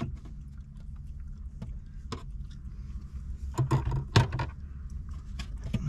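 Plastic clips of a truck's dashboard trim tray snapping and clicking as the tray is pried loose with a plastic trim tool: scattered sharp clicks, with a quick cluster and the loudest snap about four seconds in. A steady low hum runs underneath.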